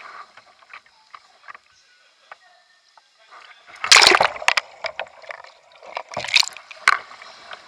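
Pool water splashing and churning as a kayak capsizes and is rolled back upright, picked up by a deck-mounted microphone going under. A quiet stretch, then a loud rush of water about four seconds in, and a second splashy burst about two seconds later.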